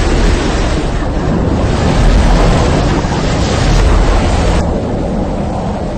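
A heavy torrent of water gushing and spraying: a loud, steady rush with a deep rumble underneath, easing slightly near the end.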